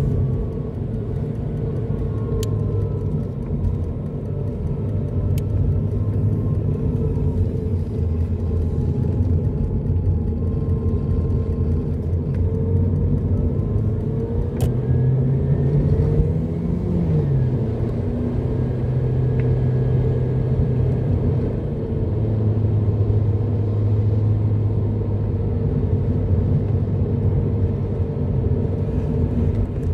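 Car engine and tyre noise heard from inside the cabin while driving. The engine note rises about halfway through, then drops back sharply and holds steady.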